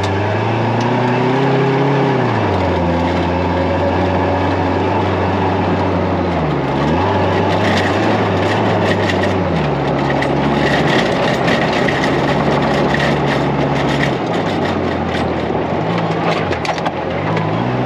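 Engine of a 1999 Chevrolet Tracker-based off-road buggy running hard at speed on a dirt trail. Its pitch dips briefly and comes back up about three times. A steady rush of tyre and wind noise runs under it, with a spell of rattling clicks and knocks in the middle.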